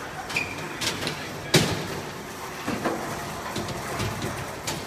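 Knocks and clatter of workers dismantling and moving wooden store display tables over a steady background rumble. The loudest is one sharp bang about a second and a half in.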